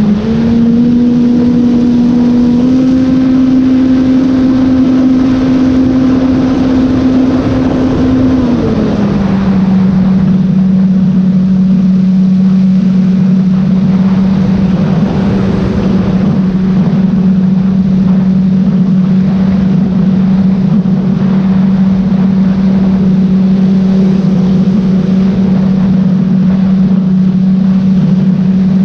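The Sky Surfer 3 RC plane's electric motor and propeller drone steadily, heard from the GoPro strapped to the plane in flight. The pitch steps up twice in the first few seconds as the throttle opens. At about eight seconds it drops to a lower, steady drone as the throttle is eased back.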